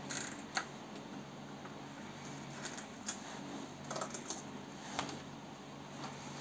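Scattered small clicks, taps and light rustling from a full-face respirator being pulled on and its straps adjusted, with the protective suit's fabric rustling, over a faint steady hum.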